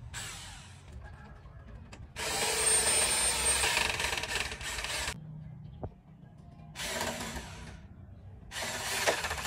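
A power tool running in three bursts: a long one of about three seconds starting about two seconds in, then two shorter ones near the end.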